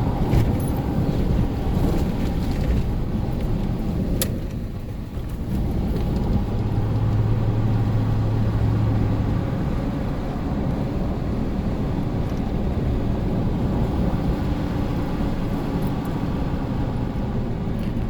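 A vehicle driving on a snowy mountain road: a steady mix of engine and road noise. A low hum grows stronger for a few seconds midway, and there is a single click about four seconds in.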